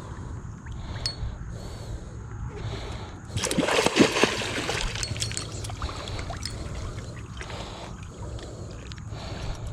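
A hooked gar splashing at the water's surface, one loud splash of about a second, starting about three and a half seconds in, with smaller water sounds around it.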